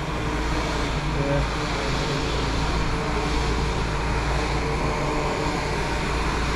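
Steady drone of workshop machinery with a strong low hum and faint steady tones.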